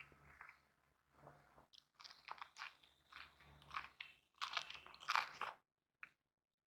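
A person chewing and crunching food in irregular bouts of wet, crackly mouth sounds, loudest a little past the middle before a short pause.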